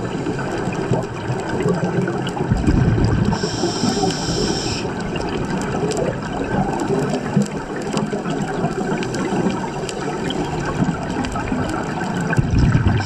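Underwater scuba breathing through a regulator: a low rush of exhaled bubbles about two and a half seconds in, then a hissing inhale lasting about a second, and another burst of exhaust bubbles near the end, over steady underwater noise with scattered clicks.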